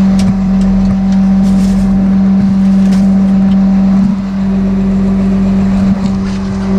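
Steady low mechanical hum of the rollback tow truck running, its tone shifting slightly about four seconds in, with a few light knocks.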